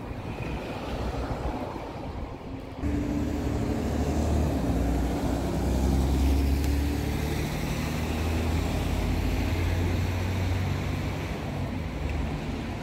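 Double-decker bus engine running close by in street traffic, the low hum suddenly louder about three seconds in and easing off near the end, with other cars passing.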